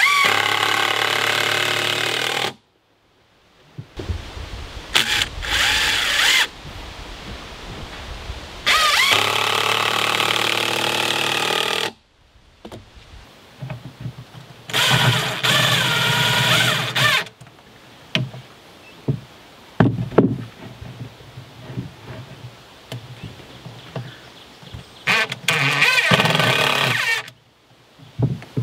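Ridgid Gen5X 18V cordless impact driver driving screws into a two-by-four and plywood. It runs in about five bursts of a few seconds each, a high whine over rapid hammering, with short gaps and a few clicks between.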